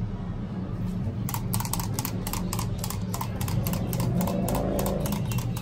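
Walking toy pigeon clicking steadily as its mechanism steps it along, about four or five clicks a second, starting a little over a second in. A steady low hum runs underneath.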